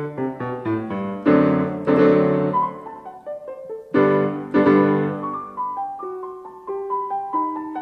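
Piano music: a run of quick notes leading into loud struck chords about a second in and again near the middle, then a quieter melody of single notes.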